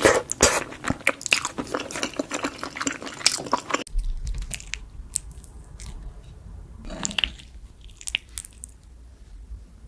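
Close-miked eating sounds: wet biting and chewing of lasagna, with dense smacking mouth clicks. About four seconds in, the sound changes abruptly to quieter, sparser chewing over a low hum, with one louder wet bite or slurp near the middle.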